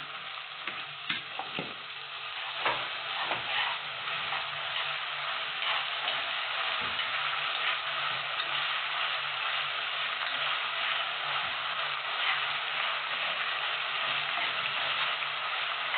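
Saltfish sizzling in hot oil with onions, tomatoes and thyme in a pot, stirred with a metal spoon: a steady sizzle with the spoon clinking and scraping against the pot, the clinks most frequent in the first few seconds.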